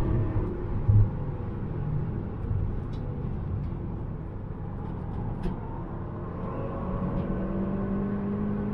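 Volkswagen Golf GTI TCR's turbocharged 2.0-litre four-cylinder heard from inside the cabin at speed over road and wind noise, with a short thump about a second in. The car slows hard and shifts down from fifth to third, then pulls again, the engine note rising near the end.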